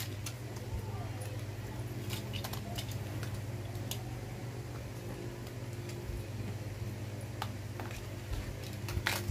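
Toy packaging of card and plastic being handled and pulled open: scattered light clicks and crinkles, with a louder crackle near the end, over a steady low hum.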